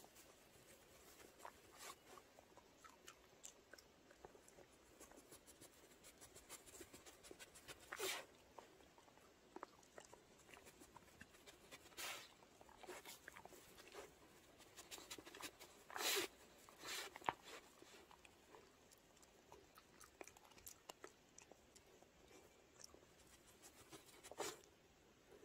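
A dog gnawing on a piece of pine wood: faint, irregular crunching and clicking, with a few louder sharp cracks spread through.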